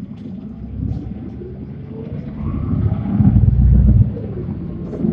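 Hino QDG-KV290N1 city bus running, heard from inside the bus: a low diesel rumble with a faint whine climbs and grows louder, then drops back sharply about four seconds in.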